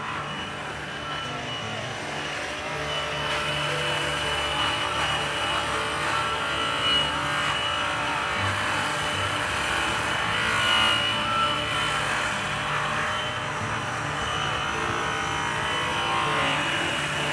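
Hand-held electric polisher spinning a purple buffing wheel loaded with green chrome rouge against an aluminum truck wheel, in the secondary cutting stage of polishing. The motor gives a steady high whine over a continuous rushing hiss, swelling a little now and then as the buff is worked over the metal.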